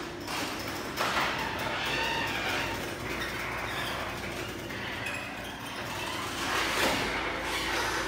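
LiftMaster garage door opener running as the garage door opens, a steady mechanical running noise that steps up about a second in.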